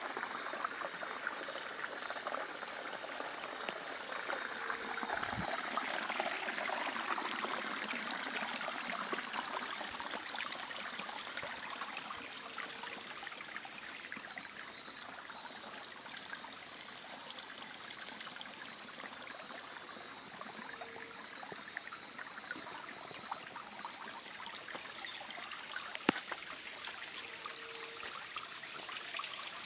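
Small rocky forest creek running, a steady rush and trickle of water over stones. A faint short low note sounds four times, about eight seconds apart, and a thin high steady tone is heard over the water for the first six seconds or so.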